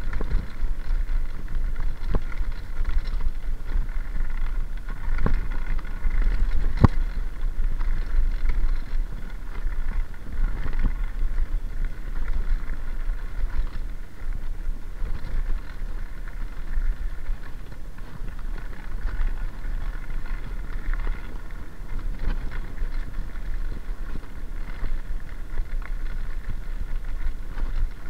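Wind rumbling on the microphone and tyres running on gravel as a mountain bike rolls fast downhill, with a couple of sharp knocks from bumps about five and seven seconds in.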